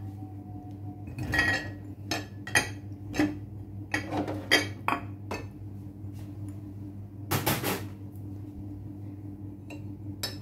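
Glass bowls clinking and knocking as they are handled and set down on a kitchen countertop: a scatter of short knocks, then one longer, louder clatter lasting about half a second around seven and a half seconds in.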